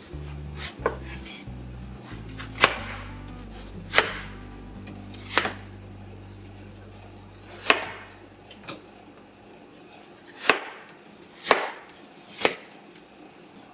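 Kitchen knife chopping on a cutting board in slow, separate strokes, about nine sharp knocks spaced a second or so apart.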